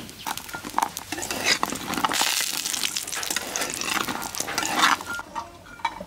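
Food sizzling as it fries in hot oil in a pan, with a spatula scraping and stirring against the pan. The sizzle thins out about five seconds in.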